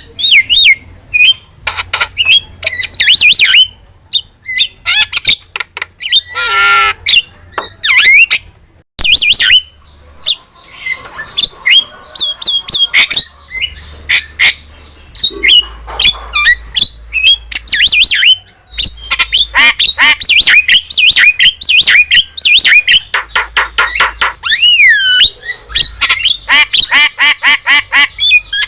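Jalak starling in full, non-stop song: rapid clicks and harsh squawks mixed with rising and falling whistled notes, one phrase after another.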